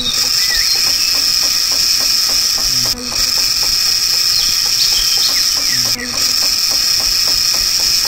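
Small motor of a homemade toy cutting machine spinning its plastic disc: a steady high whine with hiss over a fast, even ticking, dipping briefly every three seconds.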